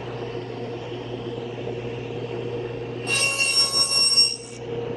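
SawStop table saw running with its blade spinning at a steady hum. About three seconds in, the blade bites into the plywood workpiece for roughly a second, making a high-pitched whine as it makes a shallow half-depth pass to cut a drawer tongue.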